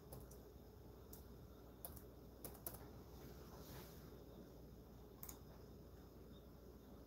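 Near silence: room tone with a handful of faint, scattered clicks in the first few seconds.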